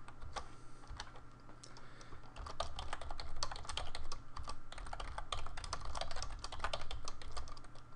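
Typing on a computer keyboard: quick runs of keystrokes, sparse at first and much denser from about two seconds in.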